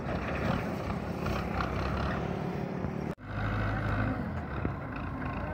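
Belarus tractor's diesel engine running hard under load as it hauls a heavily loaded trailer. The sound drops out abruptly about three seconds in and comes back as a steadier, lower engine drone.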